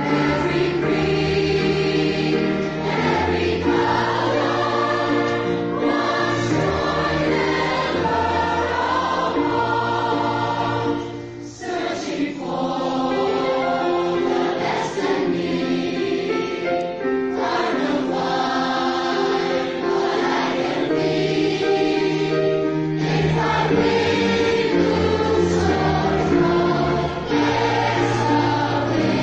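Choir singing a well-known song, with a short break between phrases about eleven seconds in.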